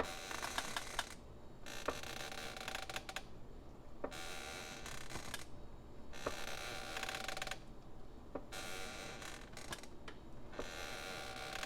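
Wooden floorboards creaking under slow footsteps: a series of drawn-out, crackling creaks, one every second and a half to two seconds, with short pauses between them.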